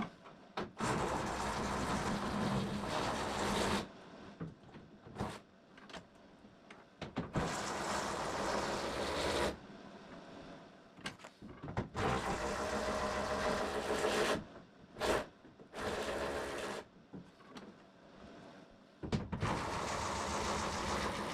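Cordless power tool running in five bursts of two to three seconds each, spinning fasteners off a car body panel, with quieter pauses in between.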